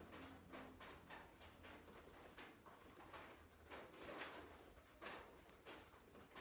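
Near silence: quiet room tone with faint, irregular clicks several times a second over a steady high-pitched hiss.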